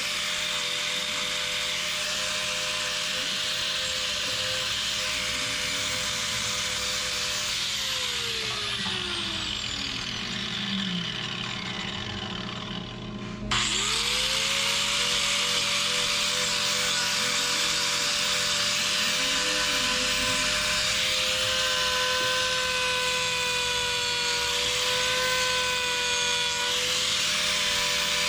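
Hoof-trimming angle grinder running steadily while grinding a cow's hoof. It winds down about eight seconds in, then is switched on again near the middle with a quick rising whine and runs on steadily.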